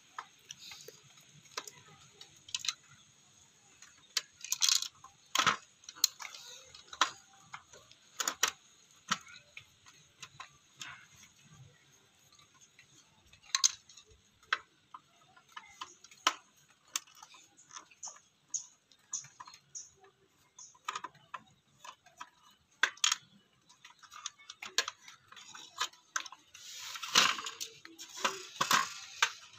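Irregular clicks and knocks of hard plastic parts and a metal screwdriver as an old cassette radio's casing and circuit boards are handled and pried at, with a denser run of louder clatter near the end.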